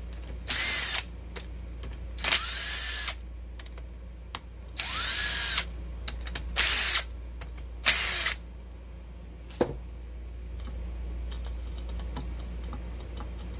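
Power drill with a socket bit spinning bolts out of the intake rocker assembly of a Honda J32A2 cylinder head. It runs in five short bursts, the motor's whine rising and falling with each trigger pull. A sharp metal click follows, then light handling of the parts.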